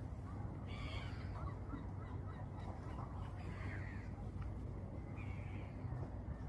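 Birds calling a few times in short calls over a steady low background rumble.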